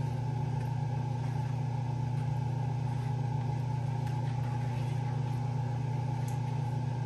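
A steady low hum, with a few faint scrapes and taps of a plastic spatula stirring coconut sauce in a frying pan.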